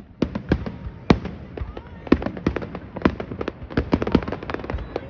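Fireworks display: many sharp bangs and crackles going off in quick, irregular succession, several a second, with one louder bang about a second in.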